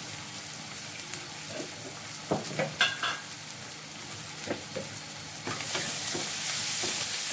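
Sliced onions sizzling in hot oil in a steel kadai, with a few clinks and scrapes of a spoon stirring them against the pan. The sizzle grows louder about five and a half seconds in.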